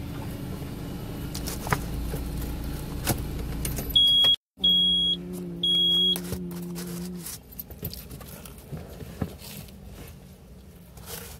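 Car engine idling with a steady low hum, with three short high-pitched beeps near the middle; the hum stops about two-thirds of the way through, leaving only light clicks.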